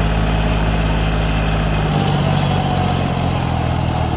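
John Deere tractor's diesel engine running steadily with a rotavator hitched behind it. About two seconds in, the deepest part of the engine note drops away and the tone shifts.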